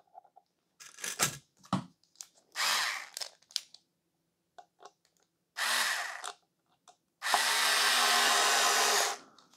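SKIL cordless electric screwdriver driving a mounting screw into an electrical box: two short runs of under a second each, then a longer run of nearly two seconds near the end. A few light handling clicks and taps come before the first run.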